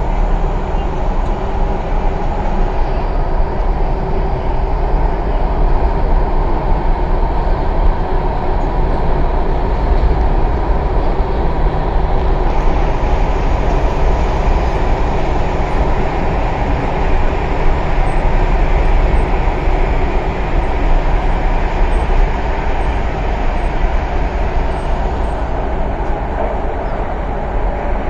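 Interior running noise of an MTR East Rail Line R-Train electric multiple unit in motion, heard inside the car by the doors: a loud, steady rumble of wheels on rail with no break.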